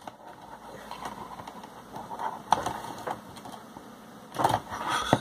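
Small clicks, taps and rattles of fingers working tiny plug-in wire connectors onto the circuit board of a disk drive, with a louder run of clicking and scraping near the end.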